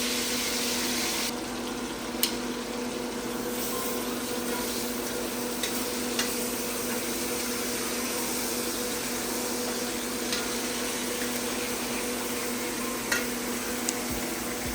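Thick pork chops searing in hot oil in a pan: a steady sizzle with a few sharp pops, over a steady low hum.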